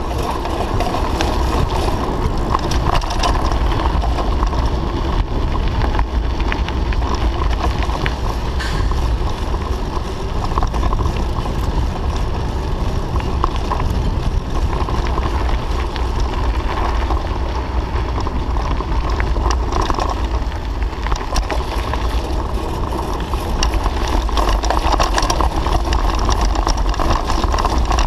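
Steady wind rush on a bike-mounted camera's microphone while riding, over the low rumble of bicycle tyres on the road, with a few faint clicks and rattles from the bike.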